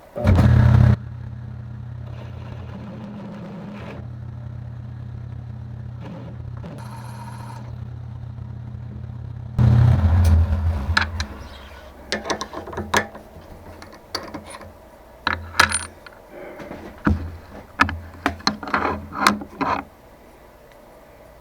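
Small milling machine running with a steady motor hum. There is a loud burst at the start and another about ten seconds in as it cuts into the steel block, then the motor winds down. Scattered metallic clicks and knocks follow.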